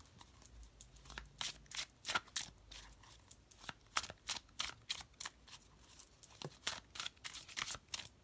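An Animal-Wise Tarot deck being overhand-shuffled by hand: a quick run of light, sharp card slaps, about three to four a second, starting about a second in.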